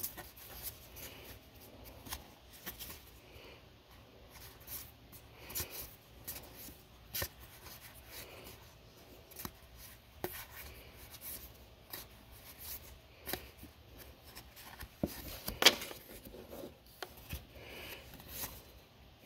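Magic: The Gathering cards sliding and tapping against one another as they are handled and moved from one hand to the other: faint, irregular rustles and light clicks, with one sharper click about three-quarters of the way through.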